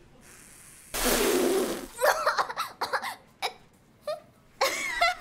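An anime schoolgirl's voice choking on a drink taken through a straw. About a second in comes a sudden sputter of breath lasting about a second, then a string of coughs and choked, gasping vocal noises.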